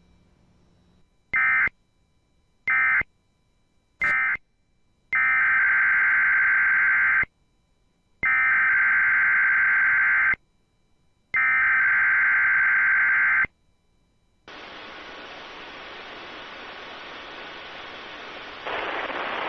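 Emergency Alert System SAME digital data bursts: three short bursts about a second apart, the end-of-message code closing one alert, then three longer bursts of about two seconds each, the header opening the next broadcast. After them a steady hiss of radio static sets in, growing louder near the end.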